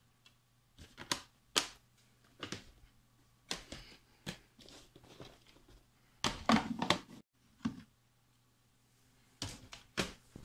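Handling noise: a string of irregular clicks and knocks as a plastic DVD case is handled and the camera is moved about, loudest in a cluster about six to seven seconds in, over a faint low hum.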